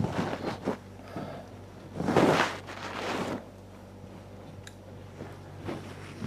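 Bedding rustling as a person gets out of bed and handles a comforter, loudest about two seconds in, over a steady low hum.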